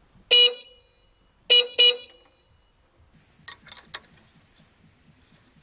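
Electric car horn sounding three short beeps: one about a third of a second in, then two quick ones in a row around a second and a half later. Light clicks and rattles of hands working follow near the end.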